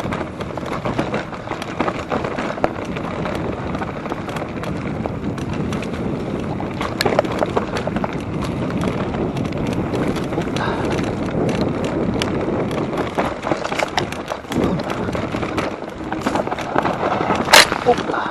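Mountain bike descending a wet dirt trail: tyres rolling over the ground and pine leaves, with the bike rattling and clicking over bumps, and one sharper knock near the end.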